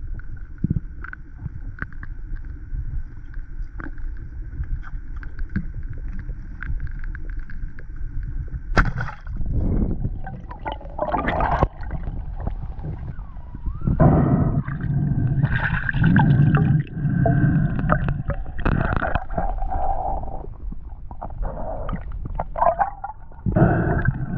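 Muffled water noise heard through an underwater camera housing: a low rumble with a faint steady tone and scattered small clicks. From about nine seconds in come loud, irregular bursts of gurgling, rushing water.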